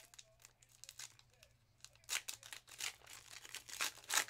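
A trading card pack wrapper being torn open and crinkled in the hands: a run of sharp crackling rustles, loudest about two seconds in and again near the end.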